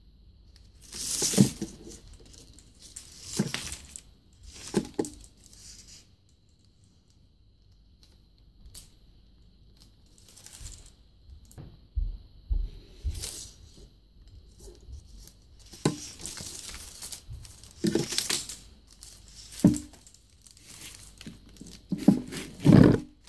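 Crumpled kraft paper crinkling and rustling under hands, with wire and string scraping through a PVC conduit tee as the wires are fished out, in irregular bursts. The loudest bursts come near the start and just before the end.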